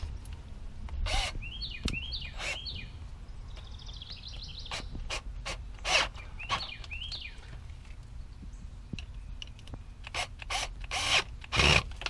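Cordless drill driving the band-clamp screws of a rubber no-hub coupling on a PVC sump-pump discharge pipe, in short runs with clicking and rattling. The loudest bursts come near the middle and again just before the end, as the clamp is run down tight.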